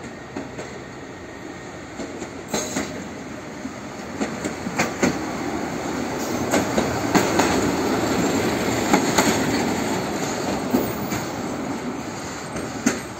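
MD07-32 track tamping machine rolling slowly past, its engine running and its wheels clicking and clanking irregularly over the rails. It grows louder as it approaches, is loudest as it passes, then eases off.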